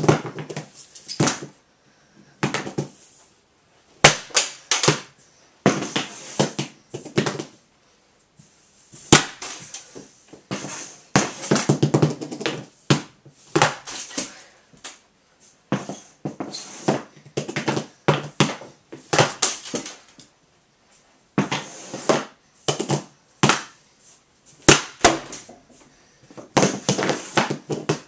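Hockey pucks being shot with a stick in a small room: dozens of sharp cracks and clatters as stick meets puck and pucks hit the mini net's metal frame, the wall and the floor. The hits come in quick irregular clusters of several, with short gaps between.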